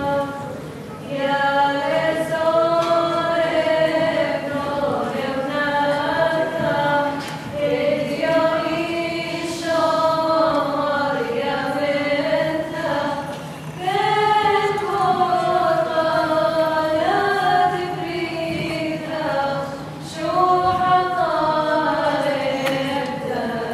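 A group of voices singing together, sung in phrases several seconds long with short breaks between lines.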